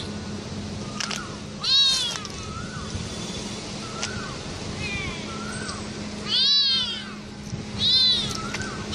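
Tabby kitten meowing over and over: three loud, high-pitched meows, with several fainter, shorter mews in between.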